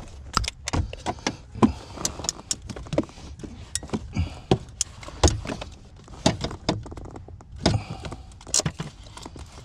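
Irregular sharp metallic clicks and knocks, a few each second, as a steering column and its mounting bolts are handled and started by hand under a car's dashboard.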